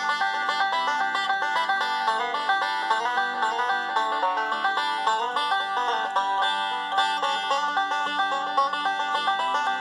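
Upbeat bluegrass music led by fast-picked banjo, with nothing in the low bass.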